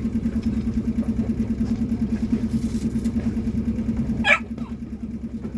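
Boat engine idling with a steady, fast-pulsing hum. A single brief, sharp sound comes about four seconds in, and the engine is a little quieter after it.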